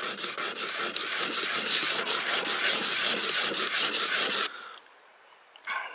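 Steel broadhead blade being rubbed back and forth in rapid short strokes on a coarse Work Sharp sharpening plate, a steady gritty scraping as the tip's bevel is ground back. The scraping stops abruptly about four and a half seconds in.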